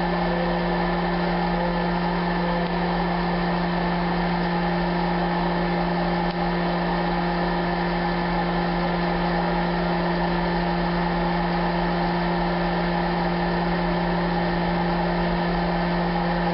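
Toastmaster 6203 hot-air popcorn popper running steadily while roasting coffee beans, its fan and heater giving a constant hum. The roast is past first crack and has not yet reached second crack.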